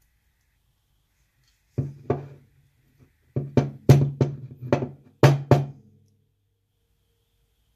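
About ten sharp knocks in short groups, with a low, hollow ring: a small lock body being rapped on a hard surface to shake out pins that are stuck in their chamber.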